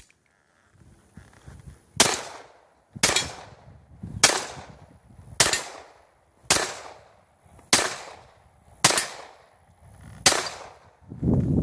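Eight pistol shots from an Armscor Citadel full-size 1911, fired at a steady pace of about one a second, with a slightly longer gap before the last. Each is a sharp crack that trails off in a short echo.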